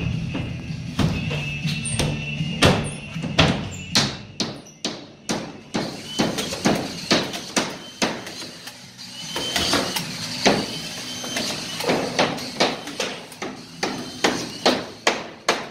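Hammer blows driving nails into drywall sheets, a steady run of sharp strikes about two a second.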